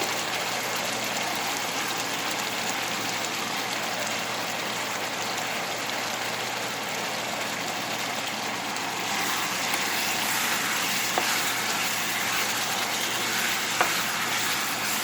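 Chicken cooking in its oyster-sauce gravy in a pan, a steady sizzling hiss that grows a little louder about nine seconds in, with a couple of faint clicks near the end.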